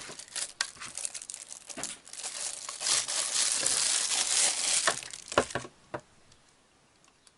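Thin plastic packaging sleeve crinkling and rustling as it is pulled off a new USB charger, loudest in the middle, followed by a few sharp clicks about five seconds in.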